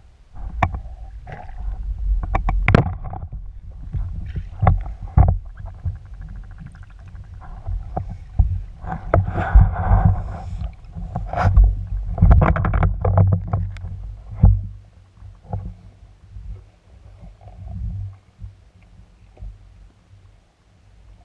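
Water sloshing, bubbling and splashing against an underwater camera housing as a spearfisher swims up to the surface, in irregular muffled bursts over a low rumble. The last few seconds are quieter.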